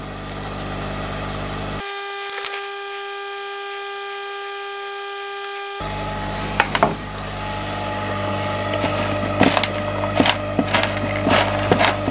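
Heat gun running steadily, shrinking heat-shrink tubing. In the second half, many short clicks and knocks of parts being handled.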